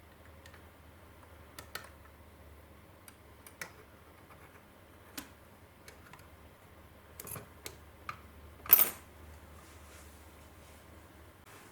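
Small scattered clicks and taps of parts and tools being handled while working on a Hitachi D-W700 cassette deck's capstan belt mechanism, with one louder, longer knock about three quarters of the way through.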